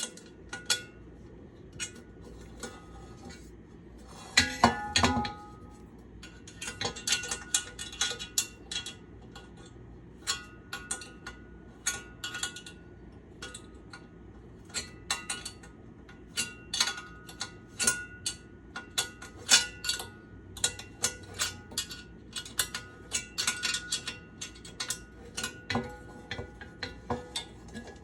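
Small metal wrench clinking against a stainless steel pan's handle bolt and nut as the handle is tightened on: many sharp, irregular clicks with a faint metallic ring. A louder cluster of clatter comes about four to five seconds in.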